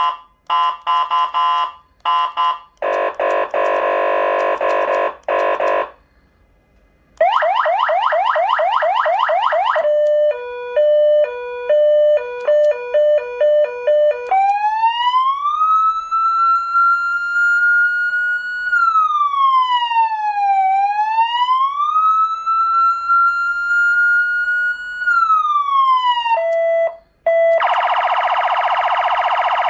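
SA830 400 W electronic siren amplifier through its siren speaker, cycling through its tones. Short beeps and a buzzy horn blast come first, then fast repeated rising yelps, a quick two-tone hi-lo, and a slow wail that rises, falls and rises again, ending on another horn blast.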